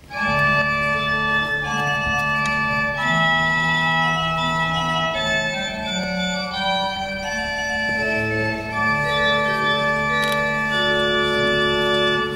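Organ playing slow, sustained chords over a held bass line, the chords changing every second or two.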